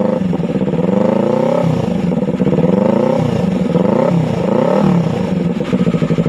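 Yamaha R3's parallel-twin engine through an SC Project exhaust with a twisted elbow and resonator, revved several times, its pitch rising and falling, then dropping back to a steady idle about five and a half seconds in.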